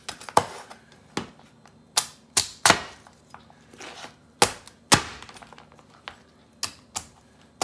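Kitchen knife chopping through king crab leg shells onto a wooden cutting board, cracking them into small pieces: about ten sharp, uneven chops.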